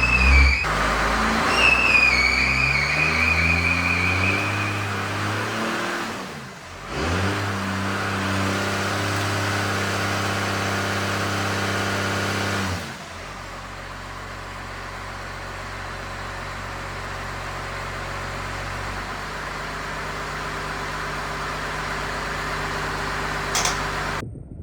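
Cummins diesel-swapped truck doing a burnout. The engine revs up with a wavering tire squeal over the first few seconds, then holds high revs until about halfway. It drops back to a lower, steady run for the rest.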